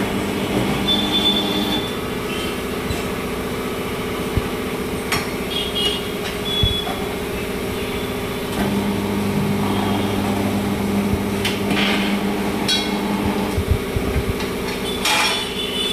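A machine running with a steady hum, with occasional sharp metallic clicks and knocks over it.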